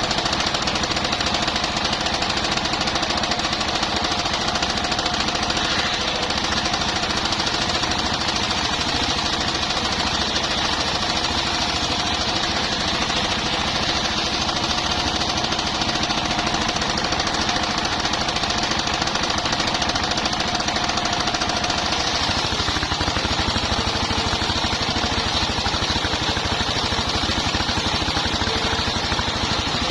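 Engine-driven circular sawmill running steadily while sawing bayur timber into beams: a fast, even engine knock with a steady whine over it. The low end of the sound shifts a little about three-quarters of the way through.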